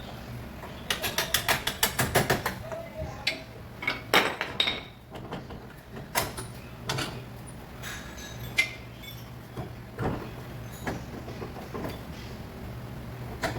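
Tools and metal parts at work on car suspension: a quick run of ratchet-like clicks about a second in, then scattered metal clinks and knocks, over a steady low hum.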